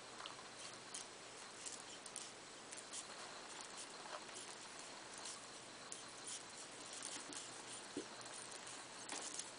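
Faint, irregular patter of small clicks and rustles over a steady hiss: African pygmy hedgehogs shifting against each other and the fleece bedding while mating.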